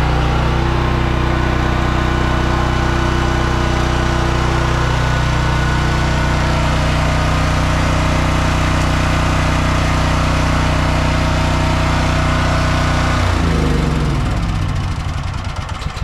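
Dual-fuel portable generator running on propane: a loud, steady engine hum close by. About thirteen seconds in, the engine slows and winds down, its pitch falling as it stops.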